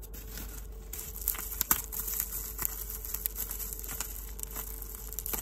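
Plastic bubble wrap crinkling and crackling as it is handled and pulled open by hand, with scattered sharp clicks.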